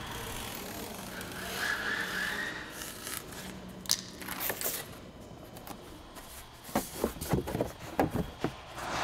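Cardboard sheet being handled. A scraping rustle comes first, then near the end a quick run of crackles and taps as the sheet is pressed into place on the floor.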